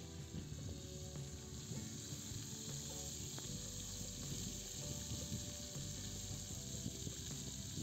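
Flour-dredged whole fish deep-frying in hot oil in a kazan: a steady sizzling hiss, with faint background music underneath.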